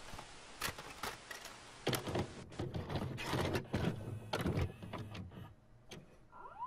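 VHS tape loading in a VCR: a quick run of mechanical clicks and clunks from the cassette mechanism, over a faint tape hiss. A brief rising squeak near the end.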